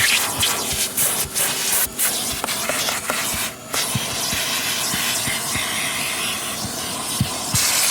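Vacuum cleaner sucking grit out of car carpet: a steady rushing hiss with many small crackles and clicks as the debris rattles up the nozzle. The sound briefly drops off about halfway through.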